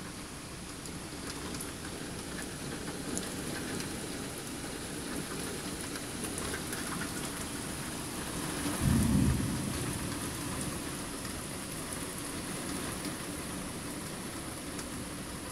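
Steady rain falling with scattered drop ticks, and a short, loud low rumble of thunder about nine seconds in.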